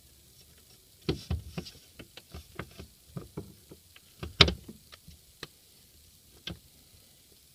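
Irregular light knocks and taps as a drilled mounting plate is handled and test-fitted against the car body's boot panels, with one sharper knock a little past halfway.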